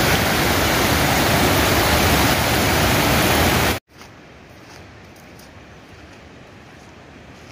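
Muddy floodwater from a rain-swollen mountain gully rushing over rocks and road debris, a loud steady roar. It cuts off suddenly about four seconds in, leaving only a faint background with a few light ticks.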